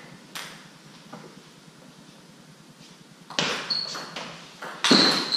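Table tennis ball being played in a rally: sharp, separate clicks of the celluloid/plastic ball on bats and table, sparse at first and then coming quicker, the loudest near the end. Two of the hits carry a brief high ring.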